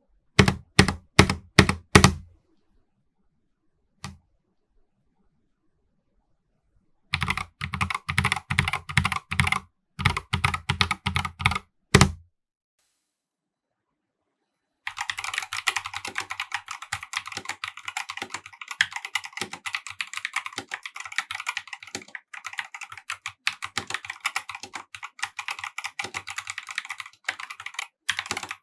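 Corsair K70 RGB TKL OPX mechanical keyboard with OPX optical linear switches being typed on. Six separate key presses come in the first two seconds, then two short runs of quick keystrokes, a pause of about two seconds, and steady fast typing from about fifteen seconds in.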